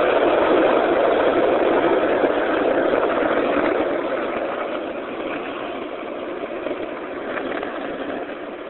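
Skateboard wheels rolling on rough asphalt, a steady loud rumble that slowly fades over the second half.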